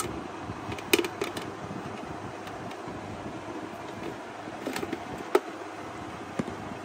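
Handling sounds of an unboxed electric blower: a few sharp clicks and knocks as its rubber power cord is unwound and its plastic housing is picked up and set down. Under them runs a steady background hiss.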